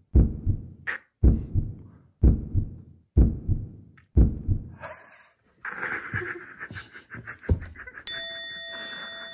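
Heartbeat sound effect, five deep thumps about a second apart, used as a suspense beat. About five seconds in it gives way to a short rattling jingle that ends in a held ringing chime.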